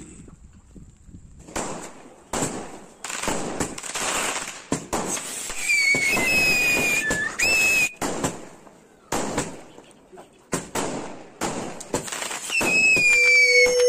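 Firework fountain spraying sparks with a rushing hiss that comes in bursts, starting and stopping abruptly. High whistles that slide in pitch sound about halfway through and again near the end.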